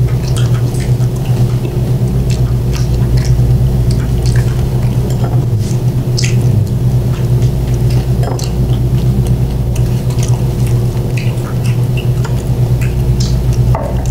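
Close-miked chewing of sushi, with scattered small clicks of chopsticks against plates and wooden sushi boards, over a steady low hum.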